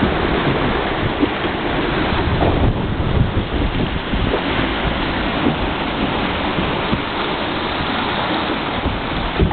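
Rush of sea water along the hull and in the wake of a sailing yacht under way, with wind buffeting the microphone in uneven low rumbles.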